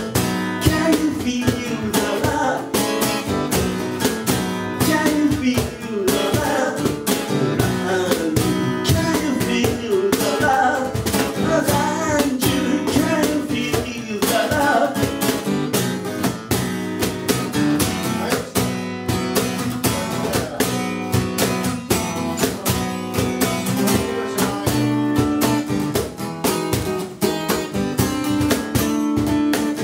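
Live acoustic music: a cutaway acoustic guitar strummed in a steady rhythm, with a cajon beaten by hand keeping the beat.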